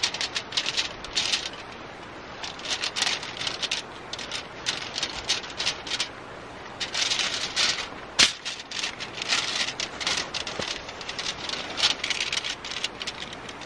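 Fillet knife cutting along a brown trout's backbone and ribs, the fish shifting on crinkling aluminium foil: irregular bouts of crackling and rustling, with one sharp click about eight seconds in.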